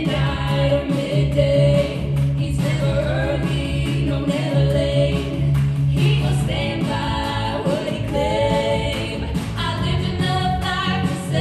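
Three women singing a song in harmony into microphones, their voices amplified, over long held low notes.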